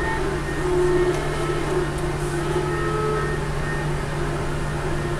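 Steady machine hum of running 3D printers: a constant low drone with faint whining tones from the stepper motors that shift in pitch and come and go.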